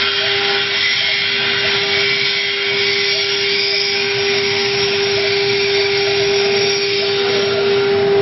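Spindle of an Acctek AKG6090 mini CNC router running while it engraves, a steady high whine over the hiss of the bit cutting into the plate.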